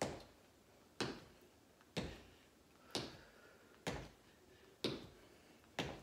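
Feet in sneakers landing on a wooden floor during alternating little front kicks, a short thud about once a second in a steady rhythm.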